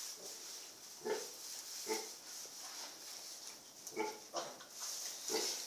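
A sow grunting in short, separate grunts, about five of them, while she roots with her snout in the straw. A faint steady hiss lies underneath.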